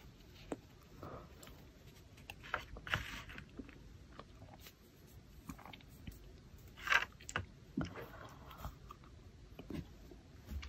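Quiet close handling sounds of rainbow cotton candy rolls being pulled apart over a clear plastic tray: scattered soft clicks and a few short rustles, the loudest about seven seconds in.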